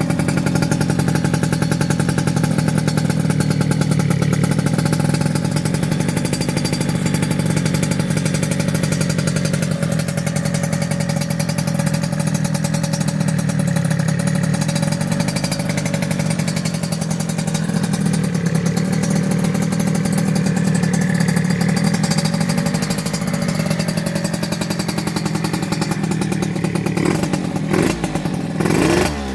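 Yamaha RZ50's liquid-cooled 50 cc two-stroke single, breathing through a BEET expansion chamber, idling steadily while still cold with the choke pulled. Near the end the throttle is blipped a couple of times and the revs jump and fall.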